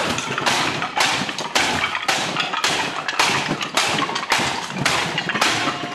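Wooden boards snapping under rapid karate hand strikes, one sharp crack after another at about two a second, in a timed speed-breaking run.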